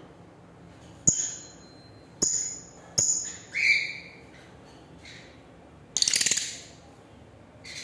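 Pet lovebirds calling: a series of sharp, shrill chirps in the first half, then a louder, harsher buzzing call about six seconds in, with faint chirps between.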